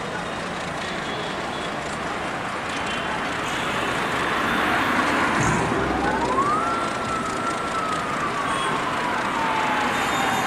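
Diesel locomotive hauling a passenger train slowly through a station yard: a steady running noise. A little past halfway a low surge comes with a whine that rises in pitch over about a second, holds briefly, then slowly falls away.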